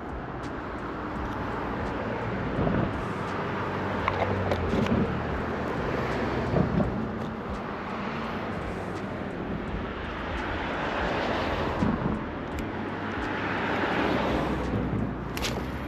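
Outdoor ambience with a steady low engine hum, and a few light knocks.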